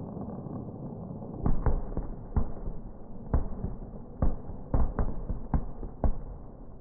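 Aerial firework shells bursting: a quick, irregular string of about ten sharp bangs beginning about a second and a half in, over a steady background noise.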